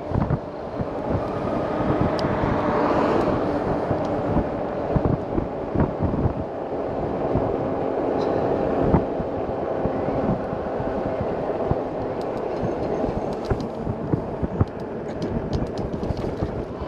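Steady rolling road noise of a Lectric electric bike being ridden along a road, with a continuous hum running through it.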